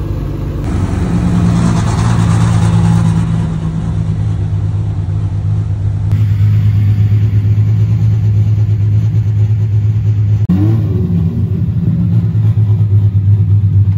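Sports car engine idling close by with a low, even note. The sound jumps abruptly a few times, as between separate takes.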